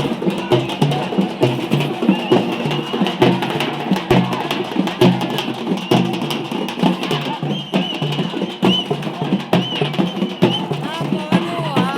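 Drums beaten in a fast, steady rhythm, dense sharp strokes over a low repeating beat, with crowd voices mixed in.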